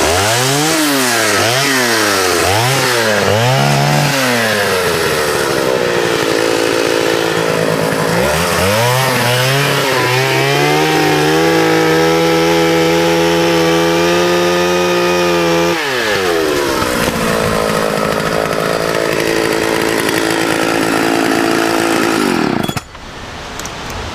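1979 Partner S-55 two-stroke chainsaw revved in quick blips about once a second, then held at high revs for several seconds while cutting through a branch. It drops back to a lower speed and shuts off near the end.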